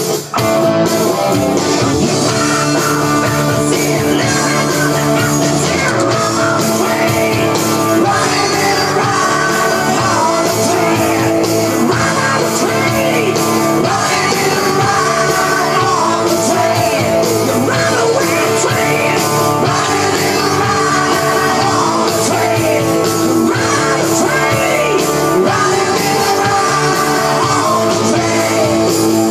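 Rock music with guitar, a steady loud mix carrying a lead melody that bends up and down in pitch throughout.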